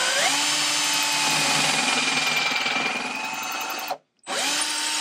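Cordless drill boring a hole straight through a wooden drawer bottom and the drawer front glued beneath it. The motor spins up quickly and runs steadily for about four seconds. It stops briefly, then spins up again for another run.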